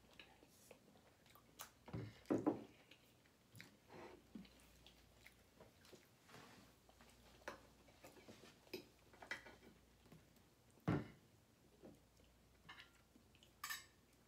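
Quiet eating at a table: chewing, with scattered clicks and scrapes of forks and knives on plates. A few louder knocks come about two seconds in and near eleven seconds.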